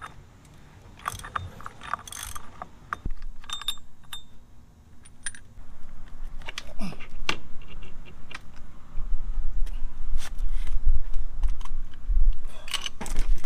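Metal tools and clutch parts clinking and rattling while the reverse-threaded nut is worked off a Harley-Davidson clutch hub, with scattered sharp clicks. A low rumble joins in for the last few seconds.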